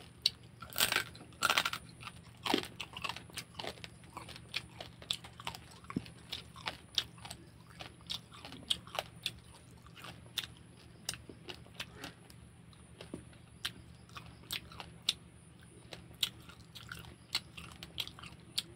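Close-up eating of crab: shell cracking and crunching between the teeth and fingers, with chewing and frequent sharp cracks, the loudest cluster about a second in. A steady low hum runs underneath.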